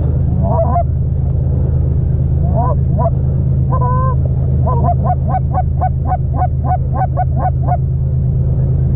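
Canada goose honks and clucks: a few single calls, then a quick, even run of about three or four a second that stops shortly before the end, over a steady low rumble.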